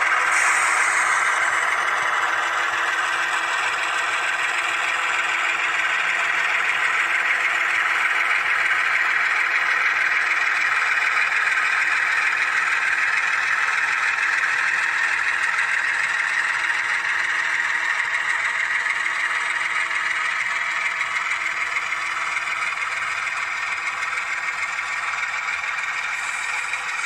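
HO-scale model freight cars rolling past on the track: a steady wheel-on-rail rattle and clatter that slowly fades. Beneath it runs the diesel engine sound from the leading GE ES44AH locomotive's DCC sound decoder.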